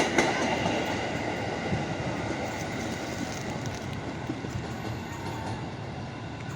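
Electric commuter train running past on the tracks: a steady rumble of wheels on rail with faint high steady tones, slowly fading as it moves away.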